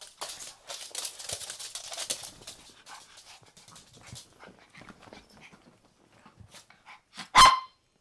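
Bedding rustling as small Maltese dogs scramble about on a bed, then one loud, sharp bark from a Maltese near the end.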